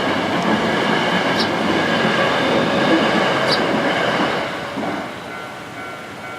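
A train passing over a railway level crossing, a steady rumbling rush of wheels on rails. The noise dies down about five seconds in as the train moves away, leaving a few steady high tones.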